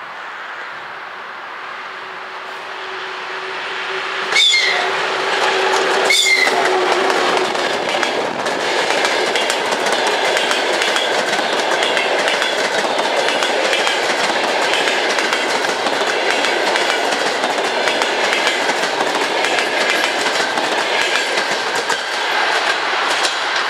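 Electric locomotive and its passenger train passing close by. A steady tone is heard as it approaches, two sharp knocks come about four and six seconds in as the locomotive goes by, and then the carriages roll past with a continuous clickety-clack of wheels over the rail joints.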